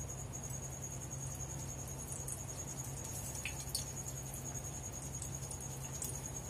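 Kachoris frying in hot oil in a pan: a faint sizzle with scattered small pops, over a steady low hum and a continuous high-pitched trill.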